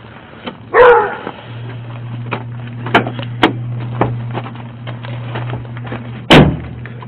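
A dog barks once about a second in, over a steady low hum. Scattered clicks and rustles of hands searching a pickup truck's cab follow, and a loud thump comes near the end.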